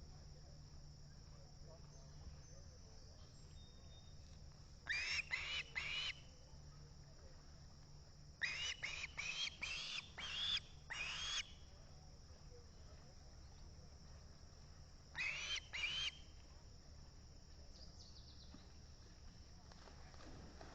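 Osprey calling in three short series of sharp, rising whistled chirps, the middle series the longest at about six notes. These are food-begging calls.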